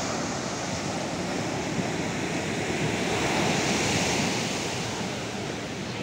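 Sea surf: small waves breaking and washing up the sand in a steady rush, swelling to its loudest about three to four seconds in.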